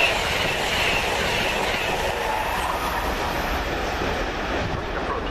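Amtrak passenger train's stainless-steel coaches passing at speed: a rushing rumble of wheels on rail with a hiss that fades off as the last car goes by.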